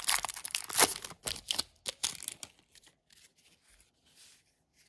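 Plastic-foil trading-card pack wrapper being torn open and crinkled: a quick run of crackling rips in the first two seconds, loudest just under a second in, then only faint rustling.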